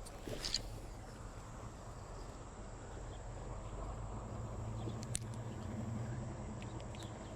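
Steady outdoor background by a river: a low hum that swells for a few seconds in the middle, a faint steady high whine, and two sharp clicks, one just after the start and one about five seconds in.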